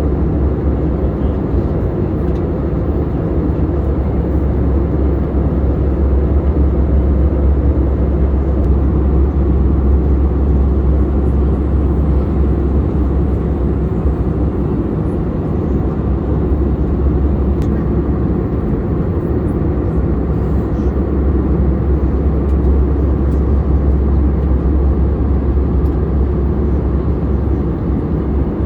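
Steady cabin noise of an Airbus A320-214 in flight: a constant low hum of its CFM56 turbofans and airflow heard from a window seat, even throughout.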